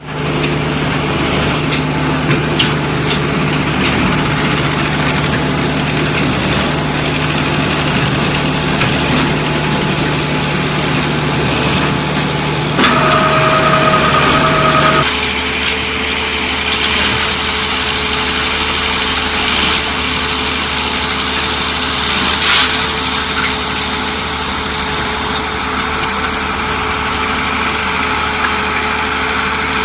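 Diesel engine of a truck-mounted concrete mixer pump running steadily. About halfway through, a steady two-tone beep sounds for about two seconds, and the engine note drops just after it. There is a brief sharp sound a few seconds later.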